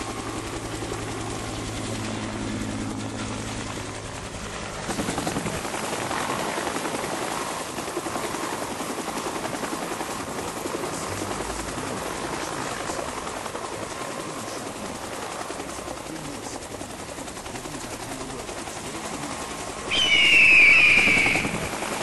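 Helicopter running overhead: a steady drone that turns into a rougher rushing noise about five seconds in. Near the end come two loud, high screeches that fall in pitch, a bird-of-prey cry.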